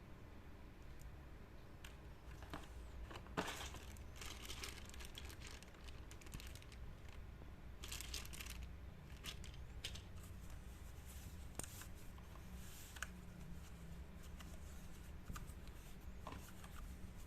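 Packaging being handled in an unboxing: plastic and paper crinkling and tearing in irregular short bursts, over a steady low hum.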